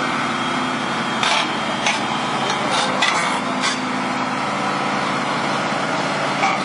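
Tracked excavator's diesel engine running steadily as the machine travels, with a few sharp metallic clanks about one to four seconds in and again near the end.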